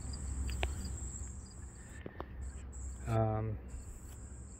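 Insects trilling at one high, steady pitch, typical of late-summer crickets. After about two seconds the trill drops out and comes back several times. A short low hum from a person's voice comes about three seconds in.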